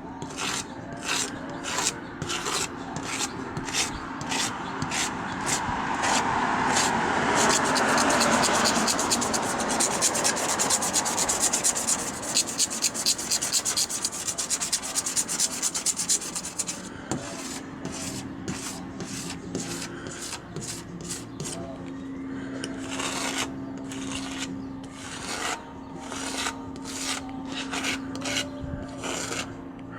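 Hand strokes scraping cured polyurethane spray-foam overspray off a car's painted stripe with a blade, about two strokes a second. For several seconds in the middle they quicken into rapid short strokes, then return to the slower rhythm.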